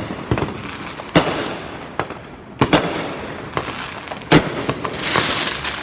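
Fireworks going off: a run of sharp bangs, roughly one every second, the loudest about four seconds in, then a burst of crackling near the end.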